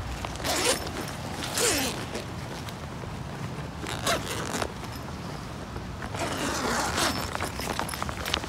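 Zipper on a rain-wet nylon bivvy bag being pulled open in about four short rasping pulls, the last one longer.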